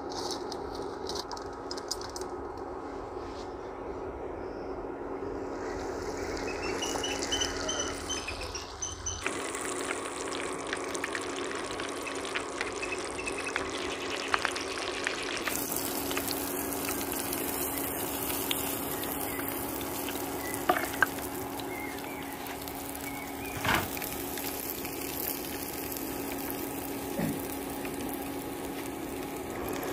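Chip-coated chicken pieces deep-frying in a pan of hot oil: a steady sizzle and bubbling, with a few sharp clicks.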